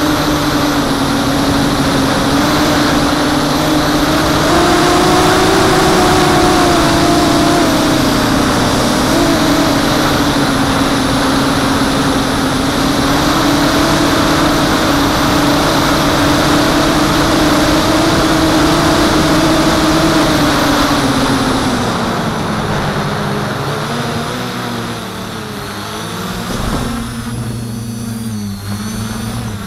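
FPV quadcopter's brushless motors and propellers whining at a steady high pitch over a dense rush of air, as picked up by the onboard action camera on a fast, low pass. About two-thirds of the way through, the whine drops in pitch and wavers up and down as the throttle comes off and is worked.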